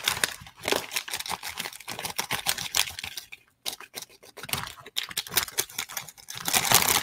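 Crinkling and rustling of plastic snack packaging, many irregular small crackles, as a seasoning packet is opened and emptied into a bag of crushed ramen snack noodles.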